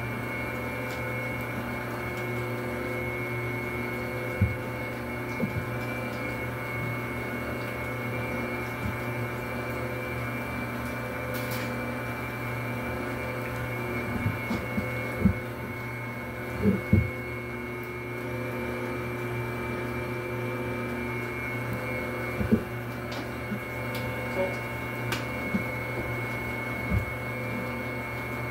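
Dough mixer motor running steadily with a hum, mixing the wet ingredients of a donut dough. A few short knocks and thumps come through, the loudest about 17 seconds in.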